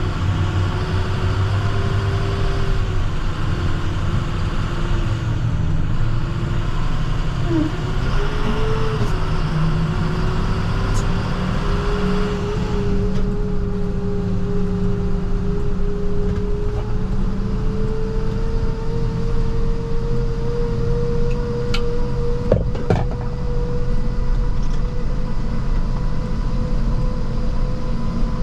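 International TerraStar plow truck's diesel engine running steadily as the truck drives, with a steady whine that drifts slowly up in pitch. A hiss fades out about halfway through, and there are a couple of sharp clicks later on.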